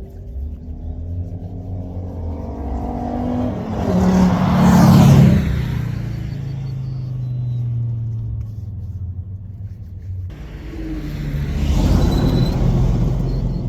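Race car accelerating hard, its engine note climbing until it passes loudly about five seconds in, then fading away. After a sudden cut, another car comes through loud near the end.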